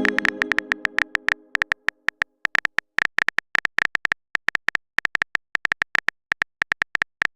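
Phone keyboard click sound effects, rapid and irregular at about eight taps a second, as a text message is typed. A ringing chime fades out during the first second.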